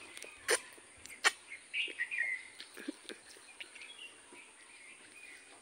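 Close mouth sounds of eating chicken curry by hand: two sharp wet smacks in the first second and a half, then softer chewing and sucking clicks. Birds chirp in the background.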